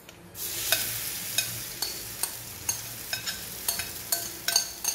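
Spaghetti-and-semolina batter sizzling on a hot cast iron tawa as it is poured on. The sizzle starts suddenly about half a second in, with light sharp ticks about twice a second.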